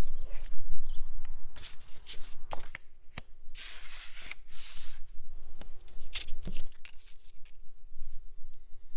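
Paper and a cardboard folder being handled close up: short rustles and scattered taps and clicks.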